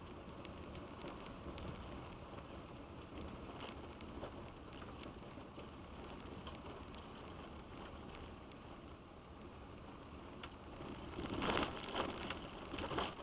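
Vehicle tyres running on a gravel road, heard from inside the cab: a steady rumble with many small clicks of gravel. Near the end a louder rush of noise comes in as the vehicle reaches floodwater covering the road.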